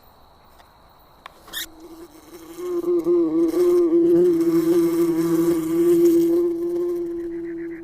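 A steady buzzing hum at one pitch with a slight wobble. It fades in about a second and a half in, holds for about five seconds, and stops near the end, like a flying insect's wings.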